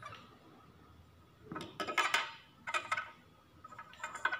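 Small plastic toy tables clicking and tapping against a glass tabletop as they are moved and set down, in three short bursts of clatter.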